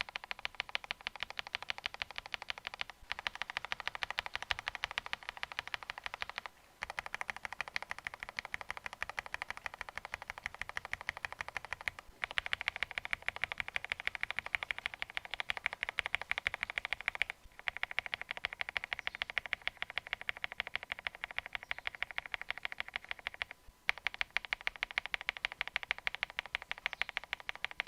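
Rapid typing on a mechanical keyboard in a sound comparison of budget switches, JWK Black linears among them: a dense run of key clacks in about six stretches with short breaks between, a different switch in each.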